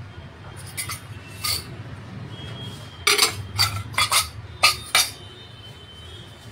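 A spatula scraping and pushing a chicken and potato mixture around a nonstick frying pan: a few strokes early on, then a quick run of short scrapes in the middle.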